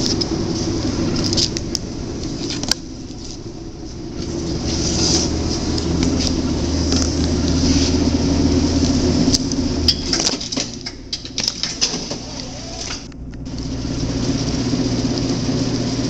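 Revolution TT tabletop semi-automatic strapping machine running with a steady motor hum, with several sharp clicks and clacks as a plastic strap is tensioned and sealed around a cardboard box.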